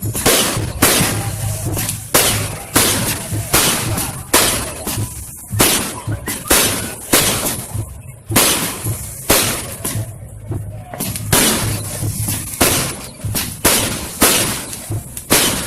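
Fireworks going off in quick, irregular succession: sharp bangs and crackles, about one or two a second, each with a short ringing tail.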